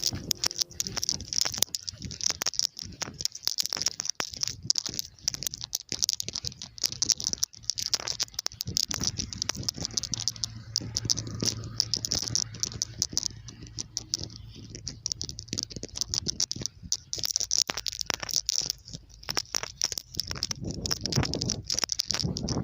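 Dense, irregular crackling and ticking of wind-blown snow against the microphone in a blizzard, with a low hum joining in about the middle.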